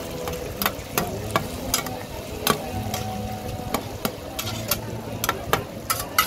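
Two metal spatulas clacking and scraping against a giant flat metal pan as rice noodles and eggs are stir-fried. Irregular sharp clacks ring out over a steady frying sizzle.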